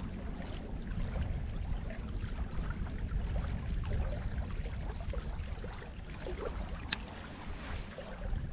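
Wind on the microphone, a steady low rush, with small waves lapping at a rocky shoreline. A single sharp click comes about seven seconds in.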